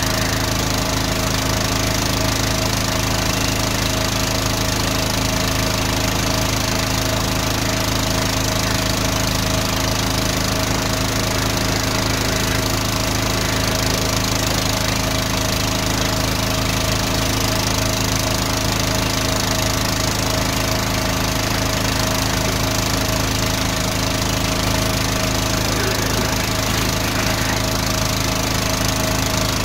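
Van-mounted drain jetter's engine and high-pressure pump running steadily at a constant pitch while the jetting hose clears a blocked gully drain.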